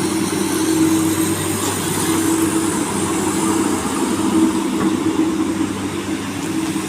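Komatsu excavator's diesel engine running steadily under work, with a constant hum and no breaks.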